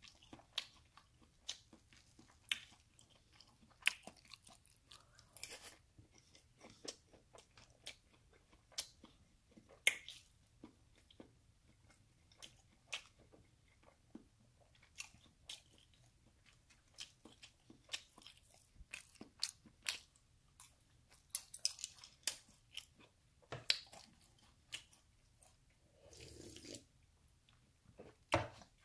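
Close-miked chewing and biting of a fast-food breakfast, with irregular sharp crunchy clicks.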